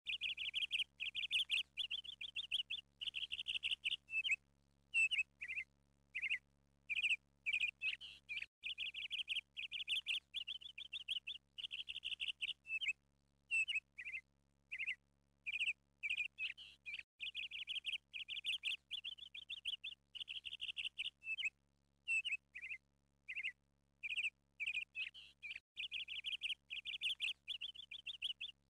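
Small songbirds chirping: quick high trills and single chirps repeating almost without pause, broken by short gaps.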